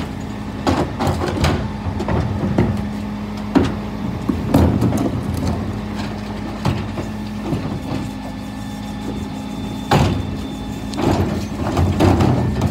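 Scania P320 refuse truck's five-cylinder diesel engine idling with a steady hum, while plastic wheelie bins are rolled over tarmac and knocked against the rear bin lifts. Several loud knocks and clatters, the sharpest about ten seconds in, as a bin is hooked onto the lift and raised.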